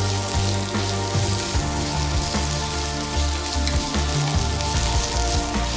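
Sliced asparagus sizzling in oil in a frying pan as it is stir-fried, with occasional light clicks of chopsticks against the pan, over background music with held notes and a changing bass line.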